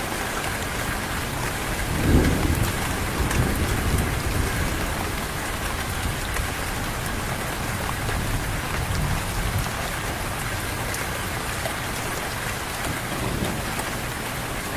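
Steady heavy rain pattering on surfaces. A low thunder rumble swells about two seconds in, and a fainter one comes near the middle.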